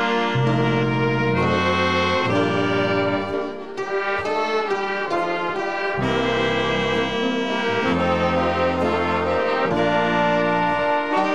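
A big band with strings plays an instrumental passage with no singing. Saxophones, trumpets and violins sound in full sustained chords that change every second or so, with a brief dip in loudness about three and a half seconds in.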